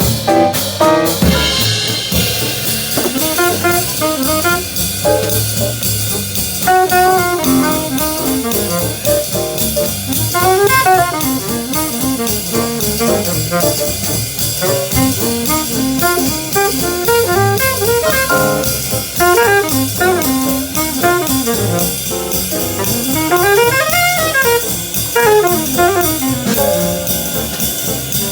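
Jazz band playing, with a horn soloing in quick runs up and down over a drum kit.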